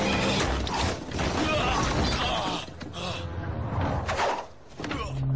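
Film sound effects of a timber and iron scaffold breaking up: a run of crashes, creaks and heavy thuds, with a low steady hum starting just before the end.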